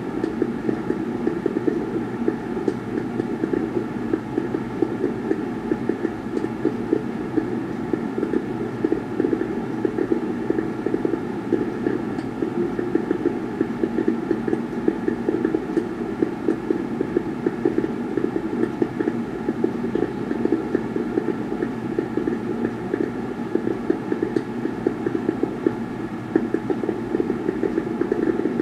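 Fireworks display played through a television speaker: a dense, muffled rumble of blurred bangs and crackle with no single shot standing out.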